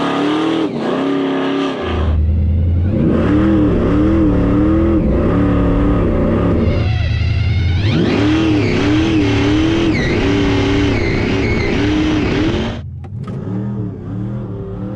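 Car engine revving hard under full acceleration in a drag race, its pitch rising and dipping again and again, until it drops away about thirteen seconds in.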